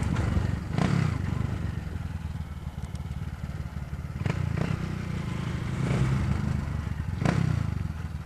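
Single-cylinder engine of a Honda CG Fan 150 running through a Gemoto Racing aftermarket exhaust, a steady low drone with a few brief knocks.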